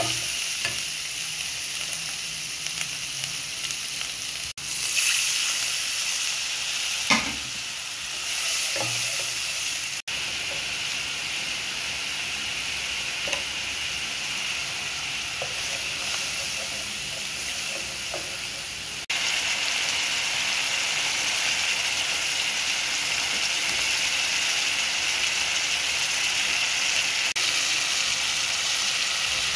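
Onion-and-spice masala sizzling and bubbling in oil in a nonstick pan, with a wooden spatula stirring now and then. There is a sharp knock about seven seconds in, and the sizzle gets louder about nineteen seconds in.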